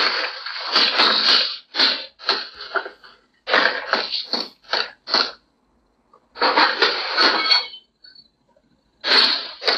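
Baseball bats smashing into a car: a run of sharp bangs and crashes, some single and some in quick clusters, with short gaps between.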